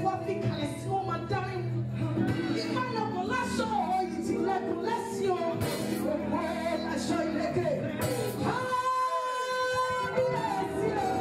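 Live gospel music: a woman sings lead into a microphone over backing music, with a second singer's voice alongside. About eight and a half seconds in, the melody gives way to a long steady held note.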